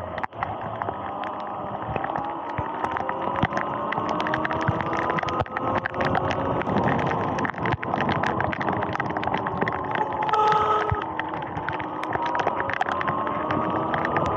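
Sur-Ron electric dirt bike's motor whining, its pitch gliding up and down with road speed, over the hiss of tyres on a wet path. Scattered sharp clicks from rain and spray hit the camera, and a brief steady tone comes in about ten seconds in.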